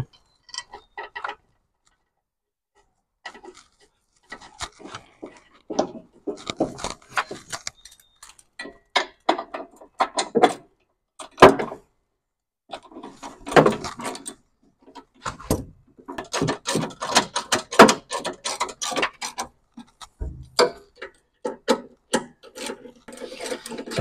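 Irregular clicks, taps and rubbing of hands and a tool working on a small metal switch assembly and its wiring inside a tractor's steering console, with a short lull about two seconds in.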